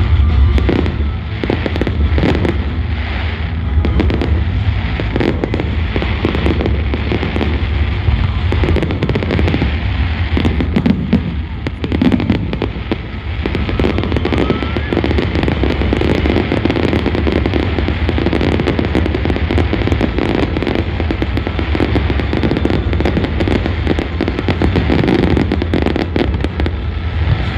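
Fireworks display: many shells bursting in quick succession, sharp bangs and crackling overlapping without a break.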